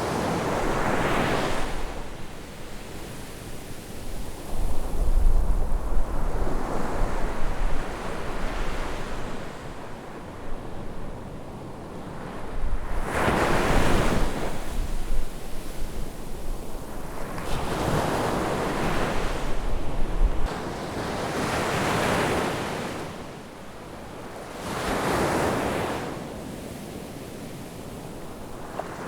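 Ocean waves breaking on a beach, each wave swelling into a hissing wash and falling back, about every four to six seconds.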